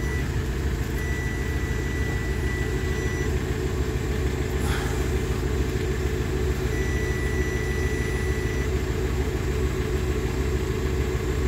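Power probe circuit tester giving a steady high beep twice, each for about two seconds, then going silent. The tone comes and goes as the wiring loom is flexed, the sign of an intermittent break in the headlight wire. A steady low rumble runs underneath.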